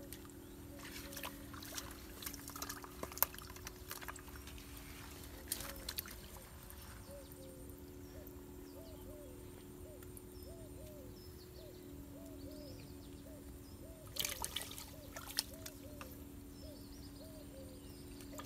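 Wet rustling and small splashes as a freshly caught fish is handled over a bucket of water, loudest in bursts near the start and about three-quarters of the way through. Behind it an animal repeats a short low hooting call about twice a second, over a steady low drone.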